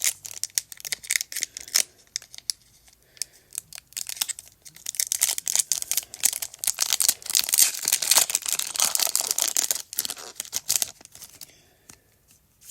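Foil wrapper of a Pokémon booster pack being torn open and crinkled: two long spells of crackling, with a lull of about two seconds between them, dying away about a second before the end.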